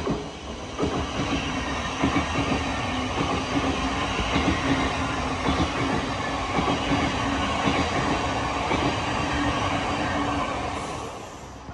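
Passenger train running through a station, its wheels clicking and knocking over the rail joints with a steady hum. It starts abruptly and fades away near the end.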